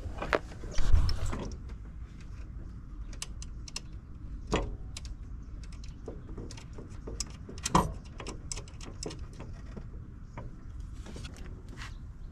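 Ratchet wrench clicking in short runs as the coilover's top-mount nuts are tightened, with a few louder metal knocks along the way.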